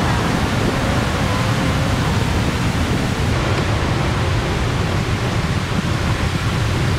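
Steady rushing noise of ocean surf breaking.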